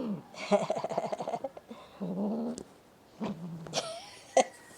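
Domestic cat coughing with a harsh, hacking burst early on, followed by a few short low cries.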